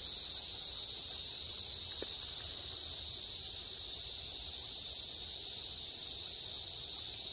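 A steady, high-pitched chorus of insects, constant and unbroken.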